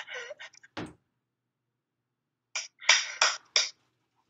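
A single dull thump about a second in. After a pause, three or four short breathy bursts of a person's voice near the end.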